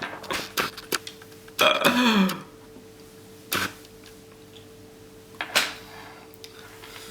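Sharp clicks and taps of a plastic spork against the ration's food pouch and tray, with a short vocal sound falling in pitch about two seconds in. A faint steady hum runs underneath.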